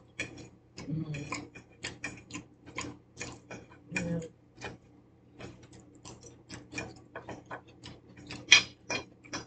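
Eating at the table: irregular clicks and taps of forks and a knife on foil pans and plates, mixed with chewing, with a louder cluster of clicks near the end.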